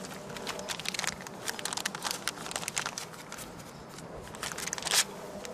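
Clear plastic bag crinkling and crackling as it is handled and pulled open by hand, with a sharper crackle about five seconds in.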